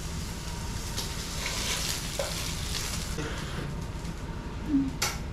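Samgyeopsal (thin pork belly) sizzling in a frying pan, a steady hiss that thins out about three seconds in. A single sharp click near the end.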